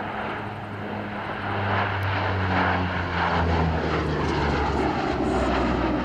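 Four turboprop engines and propellers of a Lockheed C-130H Hercules on a low pass. The propeller drone grows louder and drops in pitch as the aircraft goes by and pulls up into a climb.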